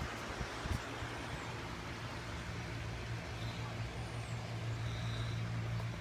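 A woman snoring lightly: a low, steady droning snore that swells about halfway through.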